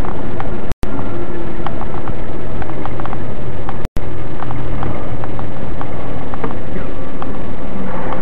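Loud, distorted engine and road noise from a dashcam inside a moving vehicle's cab, steady throughout with small rattling clicks. The sound cuts out briefly about one second and four seconds in.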